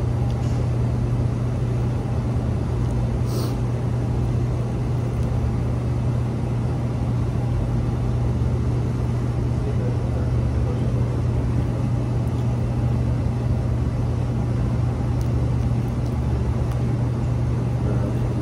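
Steady low drone at an even level throughout, like a machine running nearby, with one brief click about three and a half seconds in.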